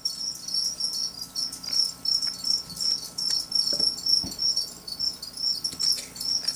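Crickets chirping steadily in a high, pulsing trill, with a few faint clicks and a soft knock about four seconds in.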